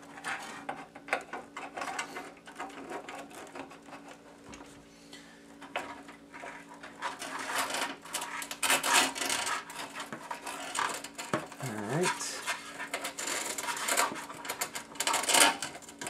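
Sleeved power-supply cables being pushed and pulled through a cable-routing hole in a PC case: irregular rustling, scraping and light knocks of the cables against the case, busier in the second half.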